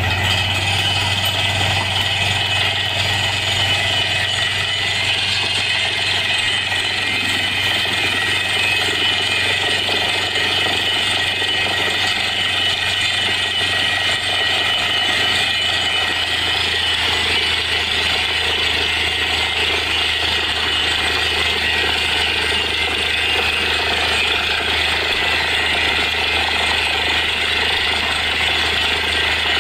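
Truck-mounted borewell drilling rig running steadily: a low engine drone under a dense hiss of compressed air blasting water and rock cuttings out of the bore, the sign of a borehole that has struck plenty of water.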